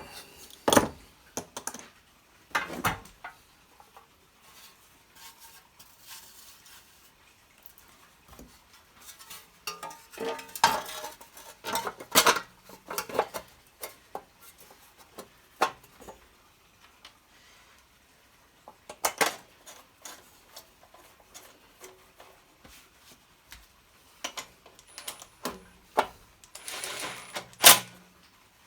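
Scattered metallic clinks, taps and knocks of hand tools and engine parts being handled while a case is refitted on a small Honda generator engine, busiest about halfway through, with the sharpest knock near the end.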